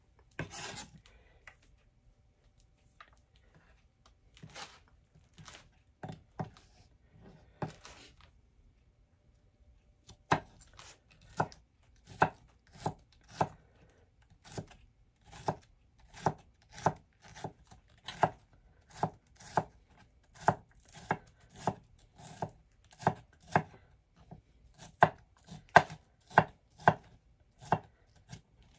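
Chef's knife chopping green bell pepper on a wooden cutting board. A few scattered knocks come first, then from about ten seconds in a steady run of chopping at about two strokes a second.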